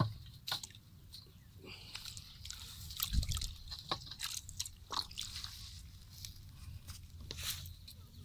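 Close handling of a wire-mesh-wrapped plastic bottle fish trap: scattered crackles and clicks as the wire netting is pulled off the plastic, with a dull thump about three seconds in.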